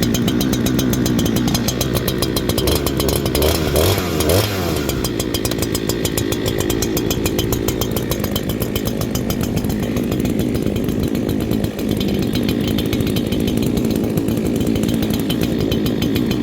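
Brand-new Holzfforma two-stroke chainsaw idling steadily while its engine is being run in and warmed up, with a brief rise and fall in pitch about four seconds in.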